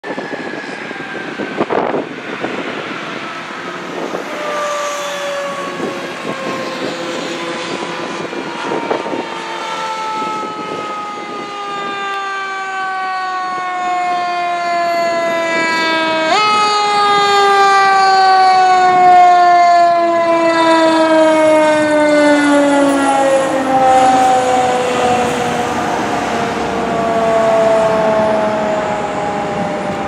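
Fire engine's mechanical siren winding down, its pitch sliding slowly lower. About sixteen seconds in it is given a brief boost and jumps up in pitch, then winds down again, growing louder as the truck comes closer.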